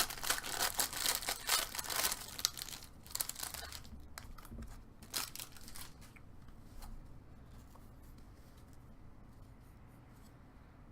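Foil trading-card pack wrapper being torn open and crinkled, busy for the first few seconds, then dying down to a few faint clicks and rustles.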